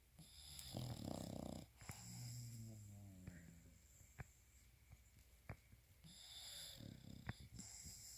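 Senior puggle (pug–beagle mix) snoring in its sleep: a snore about a second in followed by a whistling wheeze that falls in pitch, a second snore near the end, and a few soft clicks in between.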